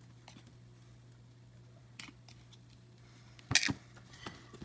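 Plastic containers being handled on a kitchen counter: a light click about two seconds in, then a sharp double click, the loudest sound, about three and a half seconds in, and a few softer clicks after it, over a faint steady hum.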